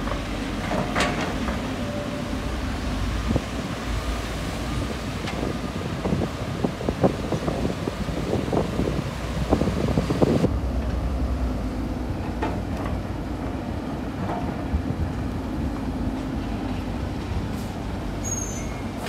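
Sany crawler excavator's diesel engine running steadily as it digs and swings, with a run of knocks and clatters around the middle.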